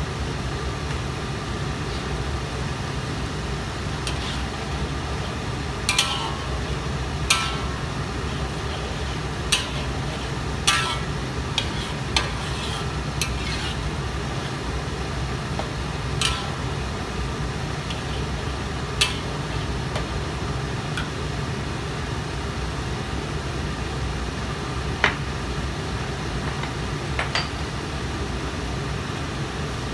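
A metal spatula stirring thick sambal in a steel wok, giving about ten sharp clinks and scrapes against the metal between about six and twenty-seven seconds in. Under them runs a steady low rumble.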